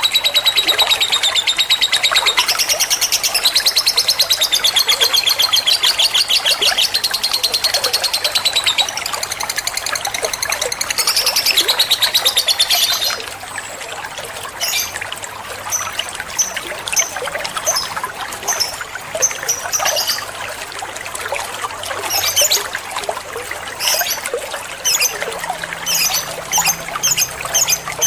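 Lovebird song: a rapid, continuous, high-pitched chattering trill for about the first half, then broken into shorter separate bursts of high chirps.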